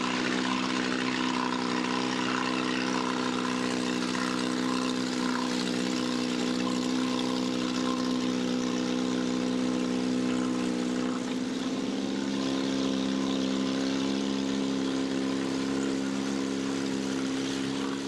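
Motorboat engine running steadily while towing canoes across a lake, an even drone that shifts slightly in pitch about two-thirds of the way through.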